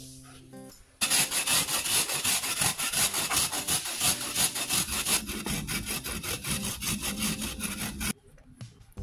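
Galangal root being grated on a stainless steel grater: rapid rasping strokes, about three a second, starting about a second in and stopping abruptly shortly before the end.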